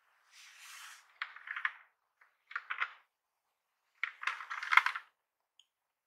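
Hard plastic clicks and clatter of a Logitech POP Keys wireless mechanical keyboard being handled and turned over. A short rustle comes first, then three clusters of clicks; the last cluster, a little after four seconds in, is the loudest.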